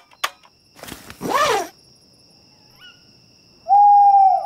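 Cartoon owl hooting: one long, steady hoot near the end, the loudest sound here, with a shorter sound about a second in that rises and falls in pitch. A couple of light clicks at the start.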